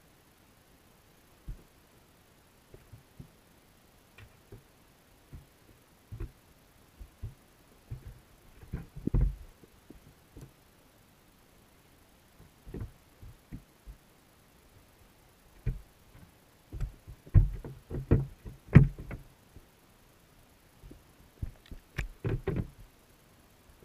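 Irregular dull knocks and thumps, underwater and muffled, as rock bass and bluegill in a wire minnow trap bump against a GoPro's waterproof housing. They come singly at first, then in quick clusters, the loudest about three quarters of the way through and another run near the end.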